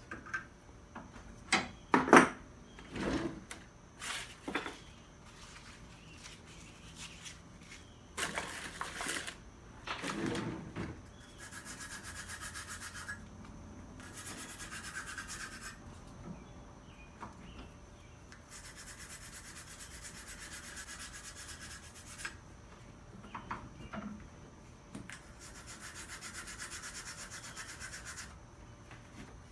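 Metal being smoothed with an abrasive tool in steady spells of a few seconds each, with short pauses between. A few knocks and clatter come in the first seconds and again around eight to ten seconds in.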